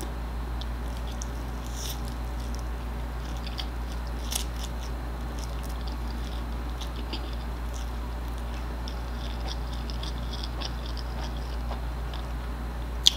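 Faint mouth sounds of a person eating stir-fried instant noodles with chopsticks: slurping and chewing with small wet clicks, more frequent in the second half, over a steady low hum.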